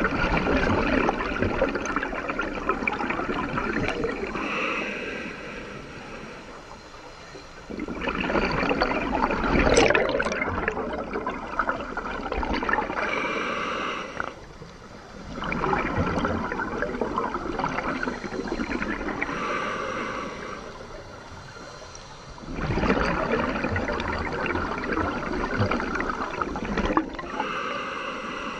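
Scuba breathing through an Aqualung Titan regulator, heard underwater. About four slow breaths, each a loud gush and gurgle of exhaled bubbles followed by the quieter hiss of an inhale through the regulator.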